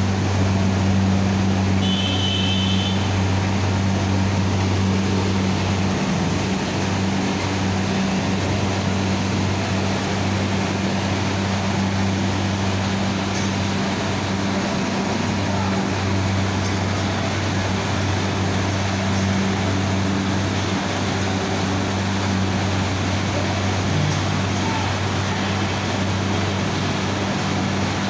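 Steady deep hum of sugar mill machinery, running evenly throughout, with a short high tone about two seconds in.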